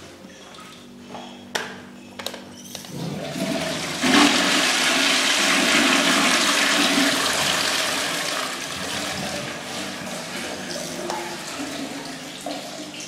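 A few knocks, then a toilet flushing from a wall-mounted cistern through a flush pipe into an open-front bowl. The water rushes in about three seconds in and surges a second later, stays strong for several seconds, then slowly tapers off as the flow weakens.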